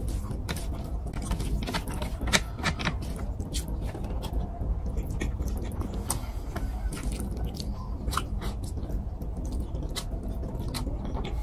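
Eating by hand: fingers squishing rice and fish curry on a plate, and chewing with frequent wet mouth clicks and smacks at an irregular pace.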